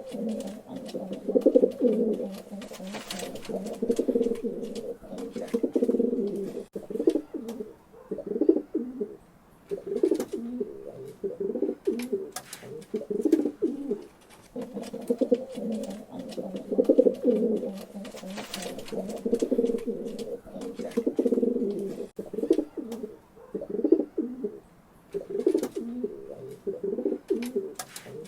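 Pigeons cooing: low, throaty coos in repeated phrases with short pauses between them, plus a few sharp clicks scattered through.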